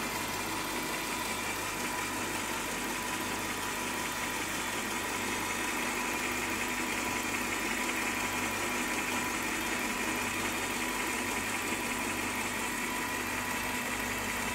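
Electric motor of a woodworking drill running steadily, a constant hum with a faint higher whine.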